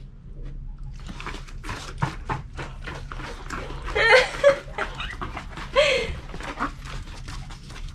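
A large dog lapping sparkling water from a stainless steel bowl: a quick, irregular run of short wet licks.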